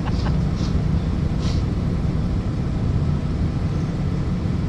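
A steady low rumble, with a few faint short hisses in the first second and a half.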